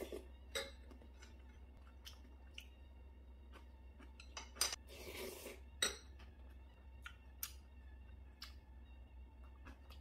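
Metal spoon and chopsticks clinking against a ceramic soup bowl and plate, with a slurp of broth about halfway through. The sharpest clinks come just before and just after the slurp, over a steady low hum.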